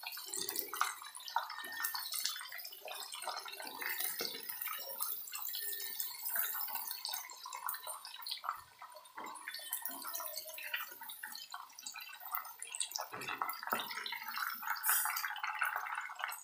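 Chicken pieces deep-frying in hot oil in a pot, a steady sizzle thick with crackles and pops, with occasional knocks and scrapes of a wooden slotted spatula turning the pieces and lifting them out.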